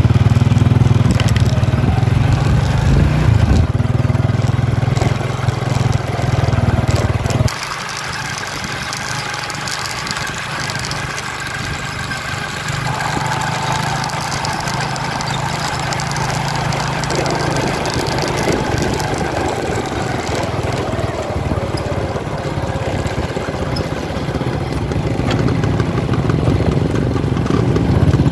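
Small motorcycle engines running as motorcycles laden with sacks of rice ride along a dirt field track. The engine sound is loud for the first seven seconds, drops abruptly, then builds again as a loaded motorcycle comes up close near the end.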